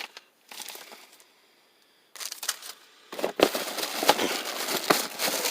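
Packaging being handled and unpacked: scattered rustling and clicks, then crinkling and crackling with sharp knocks that get louder and busier from about three seconds in.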